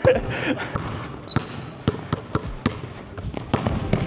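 A basketball bouncing on a hardwood gym floor in irregular thuds during one-on-one play, with sneakers squeaking on the floor in several short high chirps, the first about a second in.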